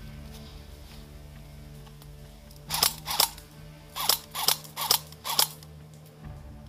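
Airsoft rifle firing single shots, six sharp snaps in under three seconds, starting about three seconds in.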